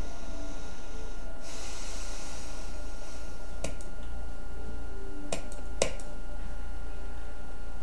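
Steady low electrical hum, with a soft breath near the microphone about a second and a half in and a few sharp clicks between about three and a half and six seconds in.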